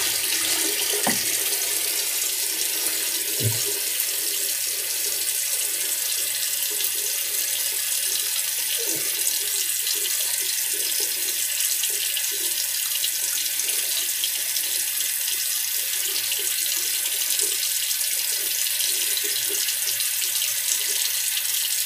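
Tap running steadily into a sink while water is splashed onto the face by hand, rinsing after a razor shave.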